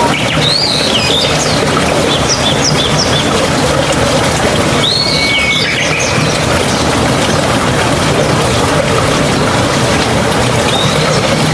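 Steady rush of running water, with small birds chirping over it in short call groups near the start, about five seconds in, and near the end.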